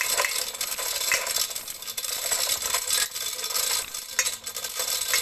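Chain block being let off to slacken the load: steel chain running through the block with a steady rattling and clinking.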